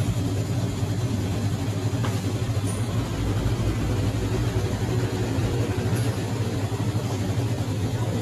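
A steady, unbroken low mechanical hum over a constant noisy background, with a couple of faint ticks.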